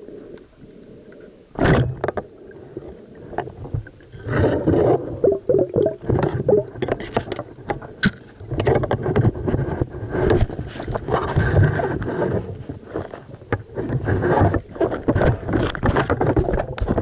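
Muffled underwater handling noise from a camera mounted on a speargun: repeated knocks and scrapes over rushing water as the diver's hands grab and stretch the speargun's rubber bands to load it. A sharp knock comes about a second and a half in.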